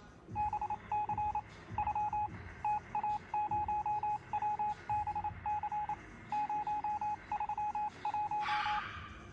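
Rapid electronic beeps on a single mid-pitched tone, coming in quick clusters of two to six with short gaps between, over a low hum; a brief burst of hiss comes just before the end.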